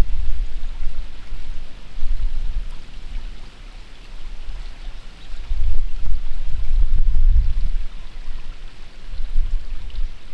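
Wind gusting over the microphone: a low buffeting rumble that swells and fades, over a steady hiss of wind or rain. The gusts are strongest about six to eight seconds in.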